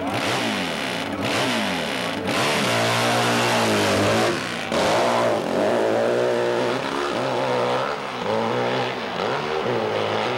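Pro hillclimb motorcycle engine revving hard, its pitch rising and falling again and again as the throttle is worked, with a brief break about four and a half seconds in.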